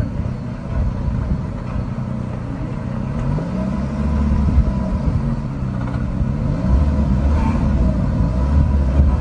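Microvan engine running at low speed, its pitch rising and falling as the van creeps forward. A deeper low rumble grows stronger about four seconds in.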